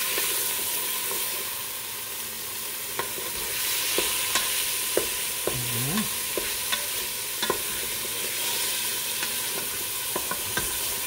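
Cubed chicken and diced onion sizzling in hot oil in a Ninja Foodi's inner pot on sauté. A wooden spoon stirs them, knocking against the pot in irregular sharp clicks.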